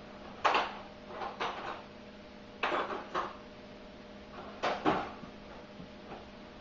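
Screwdriver and battery terminal hardware clinking and clattering in several short bursts while a loose terminal screw is being worked into place.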